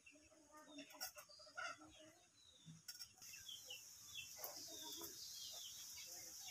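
Near silence with faint bird chirps in the background, short falling chirps repeated throughout. There are a few soft clicks in the first few seconds, and a faint high hiss comes up about three seconds in.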